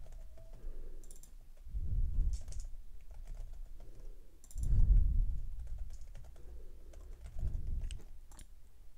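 Typing on a computer keyboard: scattered keystroke clicks, with a few dull low thumps in between.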